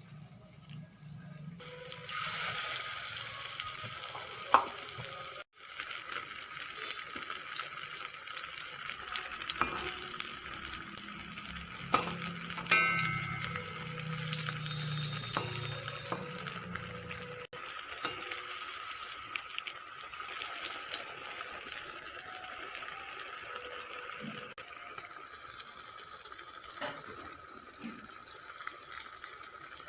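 Batter-coated paneer pieces deep-frying in hot mustard oil: a steady crackling sizzle that starts abruptly about two seconds in.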